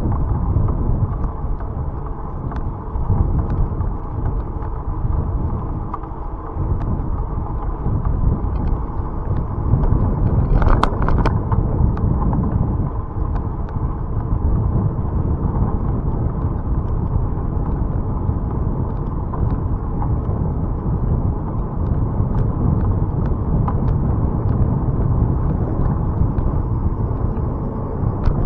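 Wind buffeting the microphone over tyre and road rumble from a bicycle ride, with scattered faint clicks and a brief rattle of sharper clicks about eleven seconds in.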